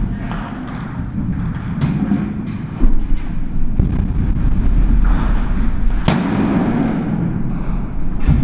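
Close-quarters combat noise: a heavy, continuous low rumble with a few sharp cracks of gunfire and blasts, the loudest about three seconds in and another about six seconds in.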